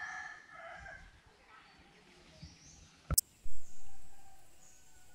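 A rooster crowing, its call trailing off about a second in. About three seconds in there is a sharp click, then a louder brief noise that fades away.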